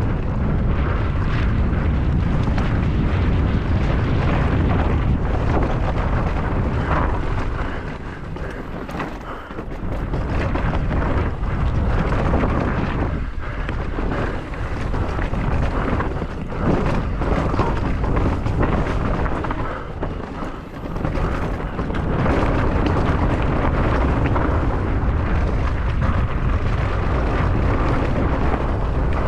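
Wind buffeting and rumble from a mountain bike descending fast over rough ground, heard on the rider's camera microphone. It eases briefly twice.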